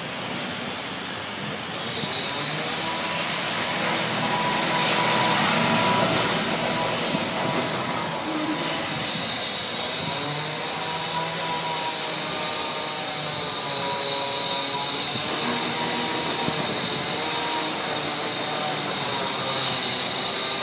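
Traffic on a rain-wet city street: vehicle engines, a bus among them, running slowly in a queue, over a steady hiss of wet road and rain. Faint engine hum wavers in pitch through the second half.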